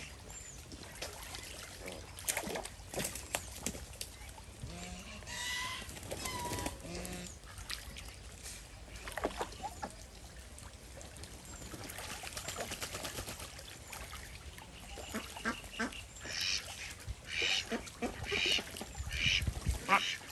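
A flock of domestic ducks quacking over splashing water as they swim and bathe. Near the end the quacks come in a quick run, about two a second.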